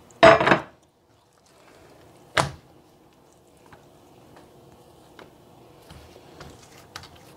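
Oiled sheets of dough being handled, unfolded and pressed out by hand on a countertop: a short louder sound just after the start, one sharp tap about two and a half seconds in, then faint soft ticks of the sticky dough.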